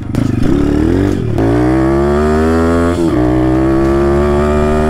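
RFZ 150 pit bike's 150 cc four-stroke single running hard under throttle through its stock exhaust, its pitch climbing steadily. The engine note dips briefly about a second in and again near three seconds, then pulls on.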